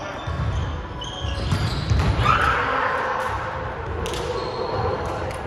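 Indoor volleyball rally: the ball struck and thudding on a hardwood gym floor amid players' footfalls, in an echoing sports hall, with a louder burst a little past two seconds as the point ends.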